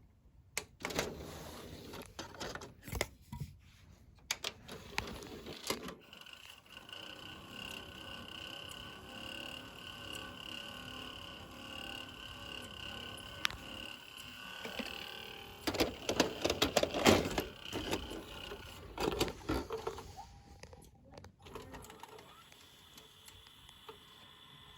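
Sony SLV-D370P DVD/VCR combo's mechanism at work: clicks and knocks, then a steady high motor whine for about nine seconds, then a burst of rattling clatter. This is the noise the owner reports from the player.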